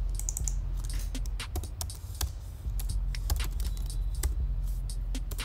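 Computer keyboard keys clicking in an irregular run of taps as a name is typed, over a steady low hum.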